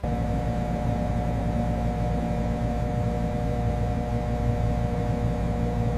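Steady low industrial hum and rumble, with a couple of faint steady tones above it, setting in abruptly and holding even throughout.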